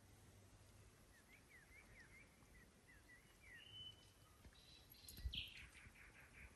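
Faint songbird calls outdoors: a quick run of short chirps, a higher whistled note, then a louder call about five seconds in, alongside a soft low thump.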